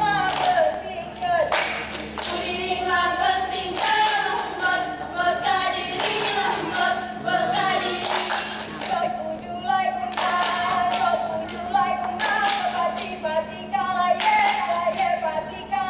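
Saman dance performers, a group of girls, singing a song together in unison while clapping their hands sharply in time.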